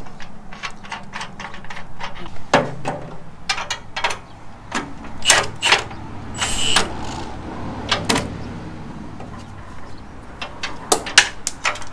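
Hand tools and bolts clinking and knocking against a steel engine cradle. A cordless impact wrench gives one short burst on a bolt about six and a half seconds in.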